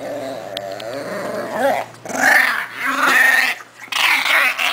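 Small dog growling in play as a hand tussles with it, the growls getting louder and rougher about two seconds in.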